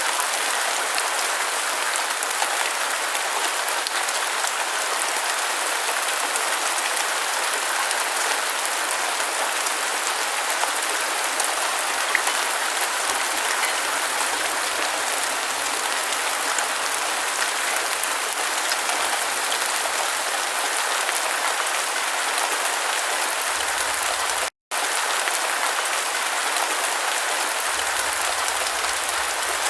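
Steady rain falling, an even hiss of many fine drops. It cuts out for an instant about two-thirds of the way through, then resumes.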